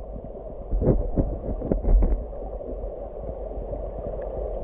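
Muffled underwater rumble and water movement, heard through a submerged camera, with a few dull knocks in the first two seconds.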